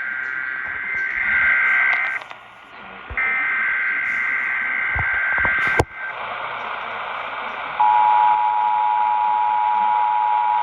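Emergency Alert System signal received over a hissy radio: two long warbling SAME data-header bursts, a click, then about eight seconds in the steady two-tone attention signal starts.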